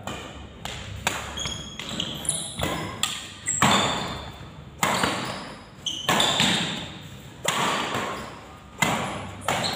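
Badminton rally: rackets striking the shuttlecock about a dozen times at irregular intervals of roughly half a second to a second, each sharp hit ringing out in the large hall. Short high squeaks from shoes on the court come between the hits.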